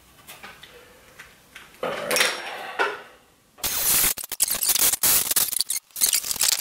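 Cordless drill boring a hole through the steel sheet-metal cover of a MIG welder's case: a loud, rough, chattering grind of about two seconds. After a brief break a second run of rough scraping follows.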